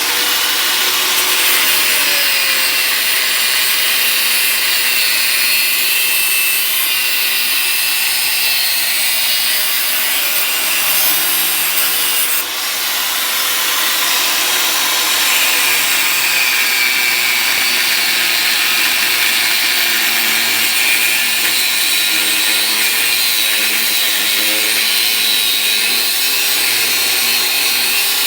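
Angle grinder running under load in one long continuous cut through old galvanised iron pipe, its pitch wavering slightly, with a brief dip about twelve seconds in.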